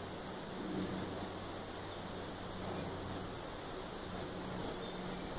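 Woodland ambience: brief high bird chirps scattered through, over a steady background hiss with a low steady hum underneath.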